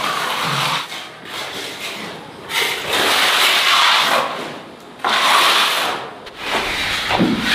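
Banana leaves rustling as they are handled and stacked, in several swishes a second or two long.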